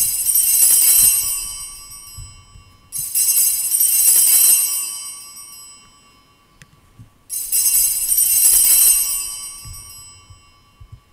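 Altar bell (sanctus bell) rung three times for the elevation of the consecrated host: a bright peal already ringing at the start, another about three seconds in and a third about seven seconds in, each fading away over a couple of seconds.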